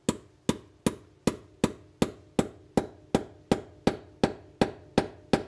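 Hammer blows on the steel pin of a concrete strike anchor, driving the pin in to expand and set the anchor in the floor. The strikes come in a steady rhythm of about three a second, each a sharp metallic hit with a brief ring.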